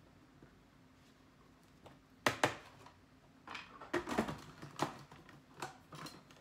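Hard plastic clicks and knocks from handling a food processor's lid and feed-tube insert, with the motor not running: one sharp knock about two seconds in, then a run of lighter clicks and rattles.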